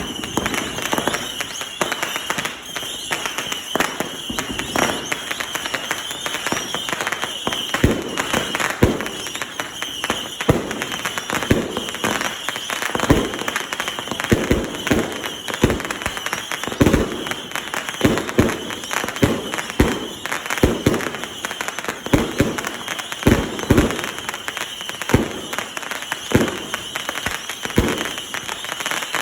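Consumer fireworks firing a rapid string of shots and bangs over continuous crackling. The bangs come closer and heavier from about eight seconds in.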